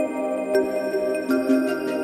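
Calm background music of held notes that step in pitch, with a few light ticks.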